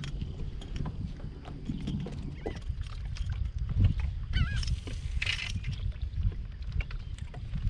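Low rumbling and scattered knocks of handling on a kayak, with two short wavering bird calls about four and a half and five and a half seconds in.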